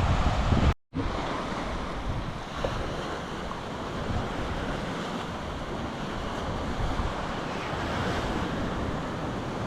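Sea surf washing steadily with wind rumbling on the microphone. The sound drops out completely for a moment just under a second in, then carries on a little quieter.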